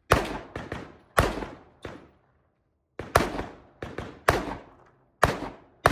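Rifle shots fired one at a time at a brisk pace: six loud shots, each ringing out briefly, with fainter sharp cracks between some of them and a pause of about a second midway.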